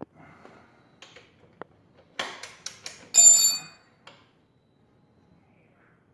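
Metal hand tools being worked on a motorcycle's rear axle. A quick run of ratcheting clicks is followed about three seconds in by a metal tool clanking, ringing briefly with a bell-like tone.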